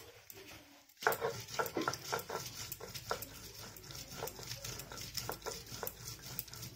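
Ginger and garlic being ground on a shil-nora, a flat stone slab worked with a hand-held stone roller: repeated, irregular scraping and knocking of stone on stone, starting about a second in.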